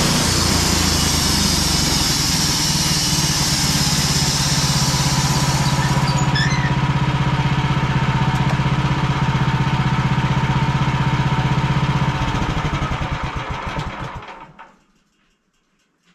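Gas engine of a portable sawmill running at speed while the blade cuts through a log, with a high hiss over the engine. About six seconds in the cutting hiss stops. Near the end the engine is shut off, running down in slowing pulses until it stops.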